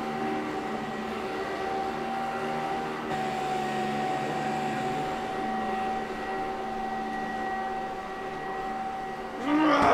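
Upright vacuum cleaner running with a steady hum and whine. Near the end a brief, louder sound cuts in over it.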